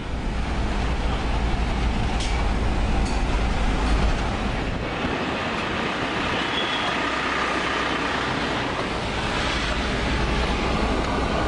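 A car driving along a road: steady engine and road noise with a heavy low rumble of wind.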